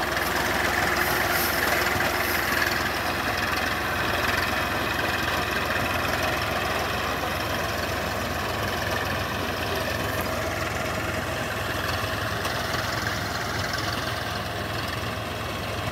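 Eicher tractor's diesel engine running steadily as it drives a mounted reaper cutting ripe rice, easing off a little near the end.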